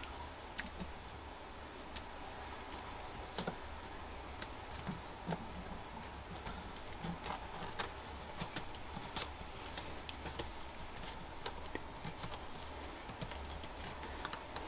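Faint, irregular small clicks and ticks of a model-railway switch rail being slid into the plastic chairs of a P4 turnout kit, with fingers handling the rail and sleeper base.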